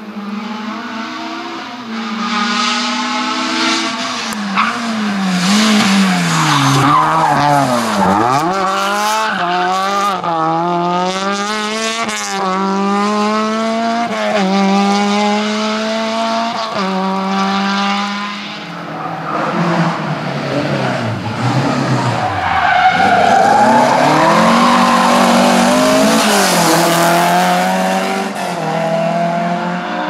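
Rally car engine at full throttle, revving hard and dropping back with each gear change. The pitch falls sharply as the car passes about eight seconds in, and it pulls away through the gears with a few sharp cracks between shifts. In the second half the engine note swells and rises and falls again.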